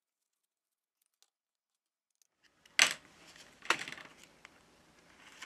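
Silence at first, then about halfway in two sharp clicks about a second apart, followed by faint scraping and tapping: the heat-softened glass back cover of a Samsung Galaxy S20 Ultra being worked loose from its adhesive with a thin plastic card.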